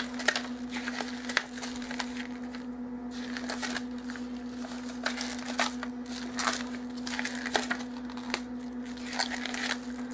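Paper pages of a spiral-bound Cricut cartridge handbook being flipped and handled: repeated short rustles and soft clicks of the pages, over a steady low hum.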